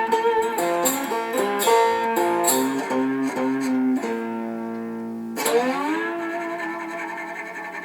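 Homemade three-string cigar-box-style guitar, with a galvanized duct-cap body and a piezo pickup, picked in a blues run of falling notes to end the song. A held note follows, then a last note struck about two-thirds through that slides up in pitch and rings out, fading.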